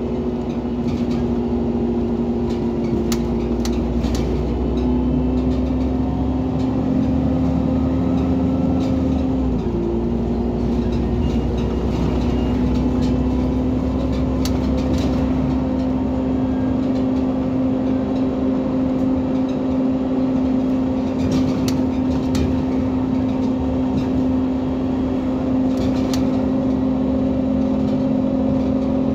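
Irisbus Citelis 18 articulated bus with its Iveco Cursor 8 natural-gas engine running, a steady droning tone with a few light clicks and rattles. Its pitch dips briefly about ten seconds in, then holds steady a little higher.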